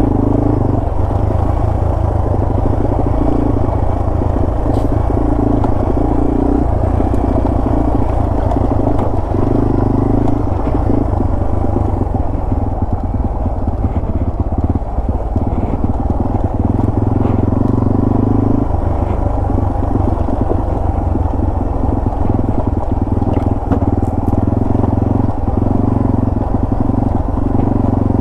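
Yamaha TW200's single-cylinder four-stroke engine running at low speed as the bike is ridden down a rocky trail. The engine note swells and eases every few seconds.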